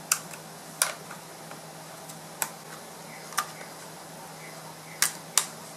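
Small sharp clicks and taps of a screwdriver and screws against a Compaq laptop's metal keyboard plate and plastic case, about six scattered over a few seconds, over a steady low hum.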